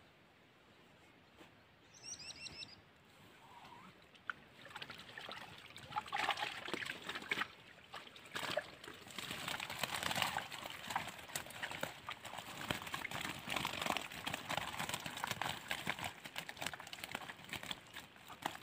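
A fish keepnet being hauled out of the river, water splashing and trickling off the mesh in irregular bursts as the net rustles, from about four seconds in. About two seconds in, a bird gives a short run of high chirps.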